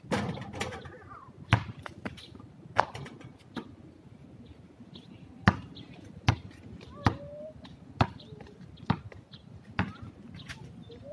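Basketball on a concrete court: a clatter at the start as a shot meets the rim, then single sharp bounces of the ball, roughly one a second through the second half.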